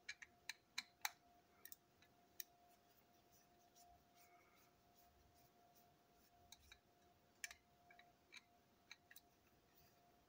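Small, sharp plastic clicks and taps as a model railway coach body and its small parts are handled: a cluster in the first couple of seconds, then a few more scattered clicks after the middle, over a faint steady hum.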